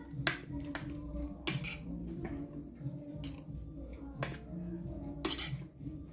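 Metal fork clinking and scraping against a plate while scooping rice, several sharp clinks, two of them louder, about a second and a half in and near the end.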